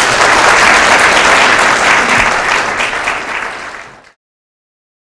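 Audience applauding, dense and steady, then cut off abruptly about four seconds in.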